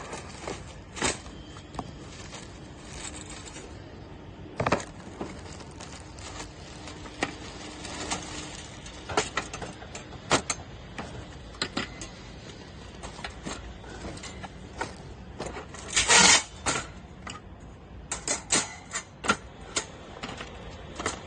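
Scattered clicks and light knocks of objects being handled, over a steady background hiss, with one louder rustling scrape about sixteen seconds in and a quick run of clicks after it.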